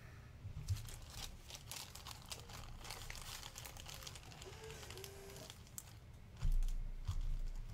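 Clear plastic bag of trading cards crinkling as it is handled and the cards are slid out, a run of faint crackles and rustles. Near the end a louder low, dull rumble comes in.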